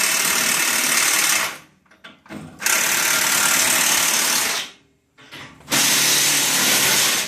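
Power impact wrench running in three bursts of about two seconds each, tightening bolts.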